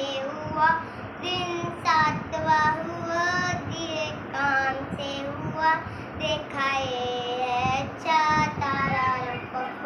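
A young girl singing a Hindustani children's song solo, in short sung phrases with a long held note about seven seconds in.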